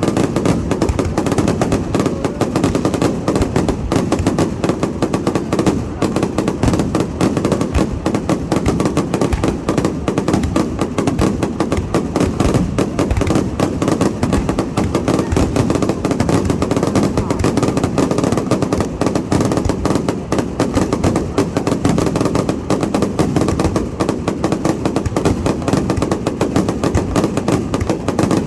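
Fireworks going off in a dense, continuous barrage: rapid bangs and crackling close together without a break.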